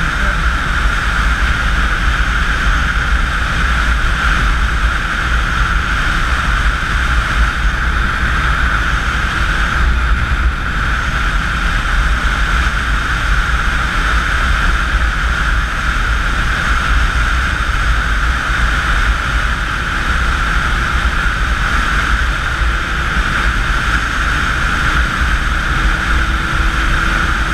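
Motorcycle cruising at highway speed, heard from a camera on the bike: a steady rush of wind buffeting the microphone over the engine's constant drone.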